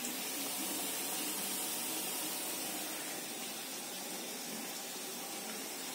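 Bottle gourd garelu deep-frying in hot oil: a steady sizzle.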